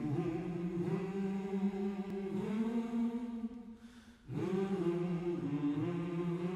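Unaccompanied singing in long held notes, in two phrases with a short break about four seconds in.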